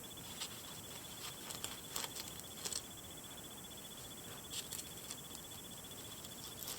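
Faint, scattered clicks and crinkles of a plastic fashion doll and its packaging plastic being handled, over a faint steady background hiss with a thin high whine.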